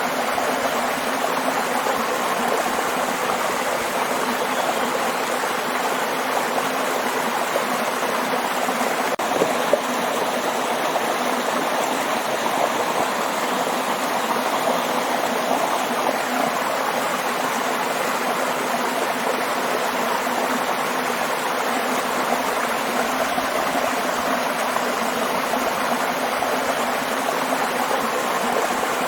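Waterfall rushing steadily, an even, unbroken wash of falling water.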